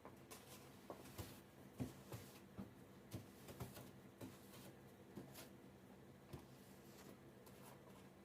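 Faint steps crunching in snow, about two a second, thinning out after about five seconds, over a faint low hum.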